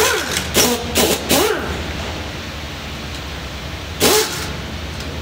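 Impact wrench fired in short bursts as it loosens bolts on a Ford V8 engine: four quick bursts in the first second and a half and one more about four seconds in, each with a whine that rises and falls.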